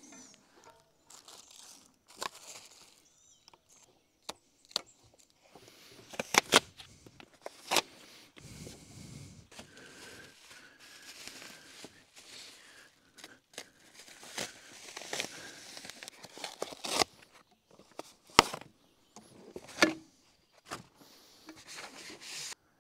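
Packing material being pulled off and sorted from a boxed e-bike: plastic and foam rustling, crinkling and tearing, with several sharp knocks and clicks scattered through.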